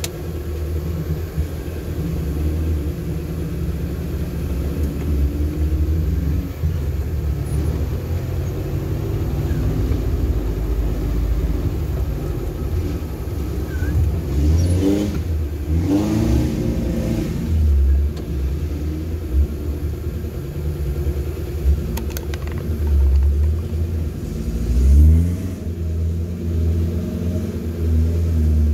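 Off-road 4x4 engine running at low revs with a steady rumble as the vehicle crawls a muddy dirt trail. Its revs rise and fall a few times, around the middle and again near the end.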